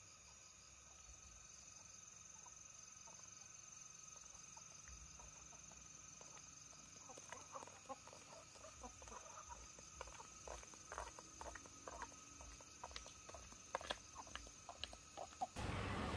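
Chickens clucking faintly, with a run of light clicks and taps through the second half. A louder, noisy background cuts in suddenly just before the end.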